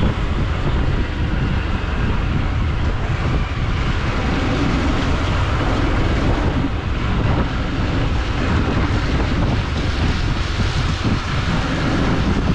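Motorcycle riding at a steady pace: a steady rush of wind on the microphone with the engine running underneath.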